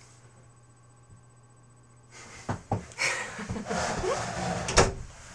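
Quiet room for about two seconds, then rustling and a few sharp knocks close to the microphone from a person moving right by it, the loudest knock near the end.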